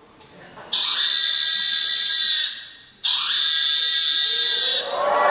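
Electronic sound effects from a popping routine's soundtrack: two bright, high-pitched synthetic tones, each cutting in suddenly and dying away after a second or two, then a rising pitch glide near the end.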